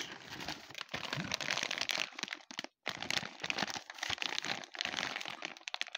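Clear plastic bag with a toy inside crinkling as hands handle it, a dense run of crackles with a short break about two and a half seconds in.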